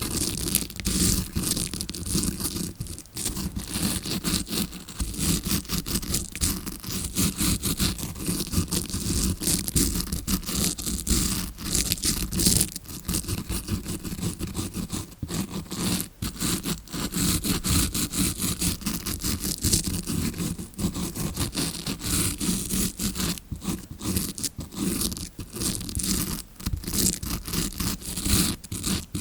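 Tawashi scrubbing brush rubbed close against a recorder's microphone in rapid scratchy strokes, imitating ear cleaning as heard from inside the ear. The strokes run fast and continuous, with a few brief pauses.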